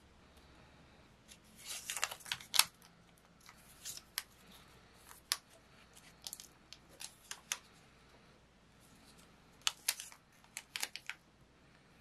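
Paper collage pieces and a tea-bag wrapper being handled and pressed onto a journal page: crinkling and sharp ticks, in a loud cluster about two seconds in, scattered single ticks after, and a second cluster near ten seconds.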